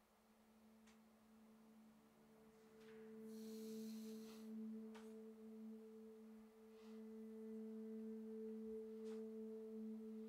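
Faint sustained music drone of two steady low tones an octave apart, swelling slowly louder, with a brief hiss about three and a half seconds in.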